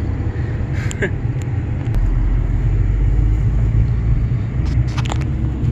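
Ford Ranger pickup driving, heard from inside the cab: a steady low rumble of engine and road that grows louder about two seconds in, with a few brief clicks and knocks.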